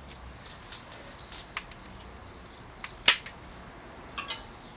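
Sharp clicks of a hand tool crimping an end cap onto a bicycle gear cable, with one loud snap about three seconds in and a quick cluster of clicks near the end.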